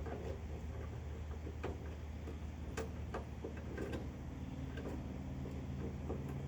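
Light, irregular metallic clicks and ticks as a bolt is started by hand into a pickup's tailgate latch, over a steady low hum.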